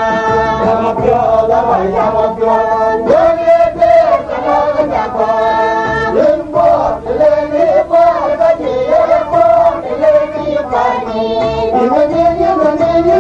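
Dinka gospel song: voices singing together over a steady beat.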